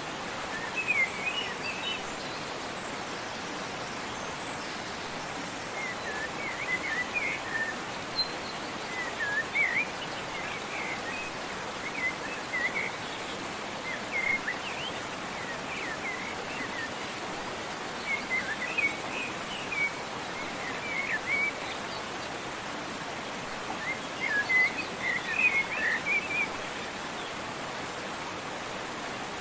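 Songbirds chirping in short bouts of quick twittering notes every few seconds, over the steady rush of a waterfall.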